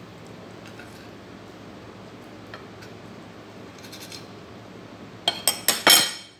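Metal table knife cutting a pancake on a ceramic plate, with faint light taps, then about five seconds in a quick run of four sharp metallic clinks as the knife is put down, the last ringing briefly.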